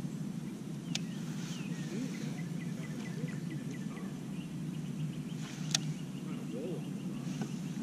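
Bird song: a run of short chirping notes repeated several times a second, over a steady low outdoor rumble. Two sharp clicks cut through, about a second in and near three-quarters through, the second the loudest.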